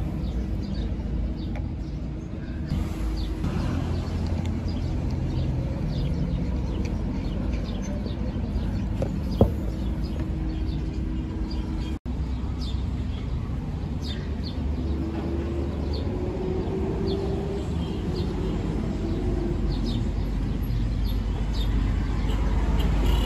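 Outdoor background: a steady low rumble of traffic with small birds chirping now and then, and a single sharp click about nine seconds in.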